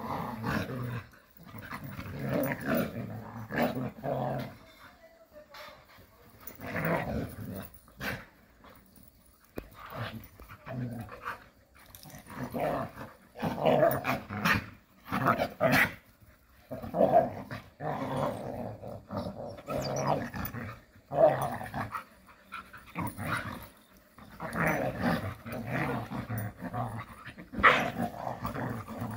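Several Jindo dogs growling in irregular bursts as they play-fight, a second or two of growling at a time with short breaks.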